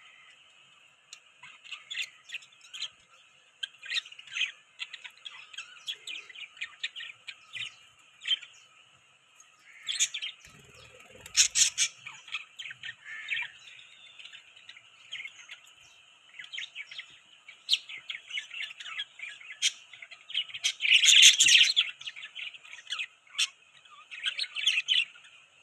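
Budgies chirping: a steady stream of short, quick chirps, with a louder burst of calls about twenty-one seconds in.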